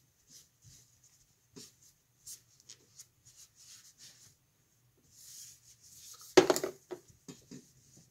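Cloth rag rubbing over a rifle's barrel and action in short, scattered wiping strokes, with one sharp knock about six and a half seconds in.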